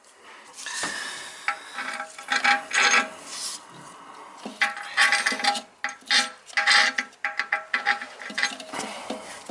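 Repeated scraping and rubbing strokes on the toilet's porcelain, with hard clicks and clatter, as the seating surface around the bolt holes is cleaned smooth before the new tank bolts and gasket go in.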